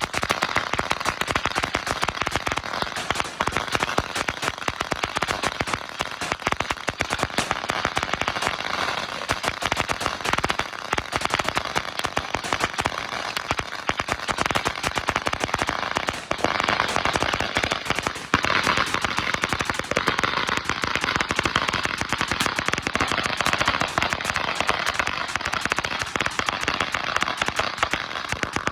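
A long string of firecrackers going off, a rapid, unbroken crackle of small bangs. It falters briefly about sixteen and eighteen seconds in.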